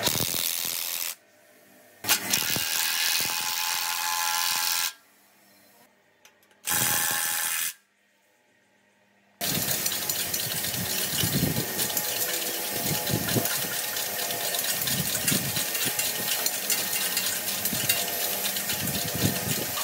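Workshop power-tool noise in short stretches that cut off abruptly, with near-silent gaps between them. About halfway in, a continuous noisy run with a dense, rapid crackle begins.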